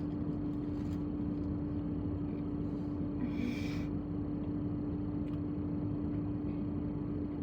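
A parked car idling, heard from inside the cabin: a steady low rumble with a constant hum. There is one brief, higher hiss about three and a half seconds in.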